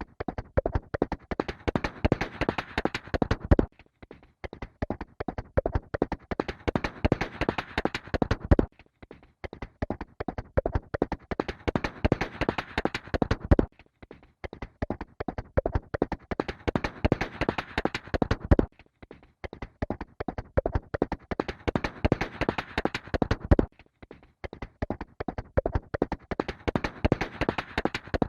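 Horse galloping, a fast run of hoofbeats on hard ground. The same pass of hoofbeats repeats about every five seconds, each time dropping away for a moment before it starts again.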